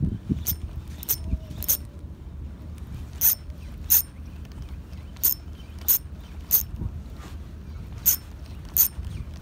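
Fishing reel clicking while the lure is worked back. Sharp clicks come in short runs, about one every two-thirds of a second, over low wind rumble on the microphone.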